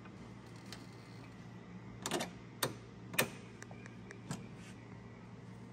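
A few sharp clicks and taps of metal parts as the lower shock bolt is fitted through the shock's lower eye and the control-arm mount: a short cluster about two seconds in, two single clicks over the next second, then fainter ticks. A steady low hum runs underneath.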